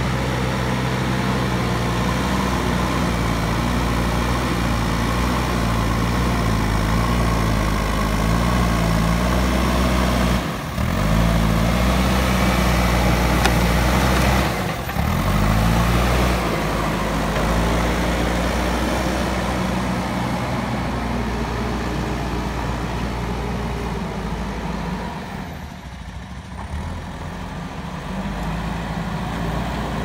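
JCB backhoe loader's diesel engine running under load while the front loader pushes and lifts soil. The engine note rises and falls with the work, with two brief drops about a third of the way in and about halfway, and it eases off near the end.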